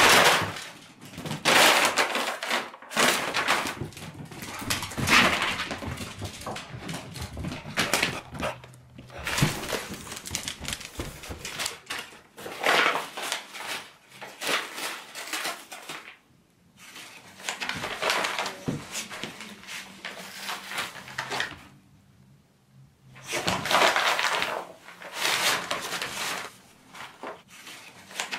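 Paper shopping bags crinkling and ripping as a beagle tears, tramples and noses through them: dense bursts of rustling, with two short lulls.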